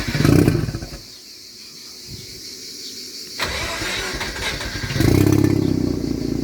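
Car engine being started on a new tune. It catches with a brief loud burst, then falls away. A few seconds later it is cranked again and runs loudly for about a second and a half before dropping off, failing to stay running or rev.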